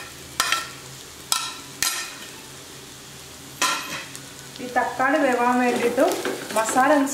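A wooden spatula stirring onion masala frying in a clay pot, with a soft sizzle underneath. A few sharp knocks and scrapes come in the first four seconds as tomato slices are tipped in and pushed about.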